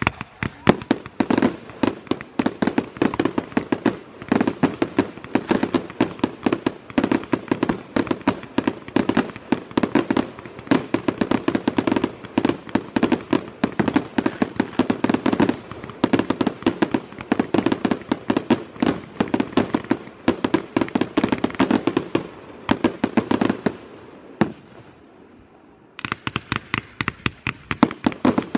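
Aerial fireworks display: a rapid, dense barrage of sharp bangs and pops, many a second. The barrage dies away for a couple of seconds near the end, then starts up again.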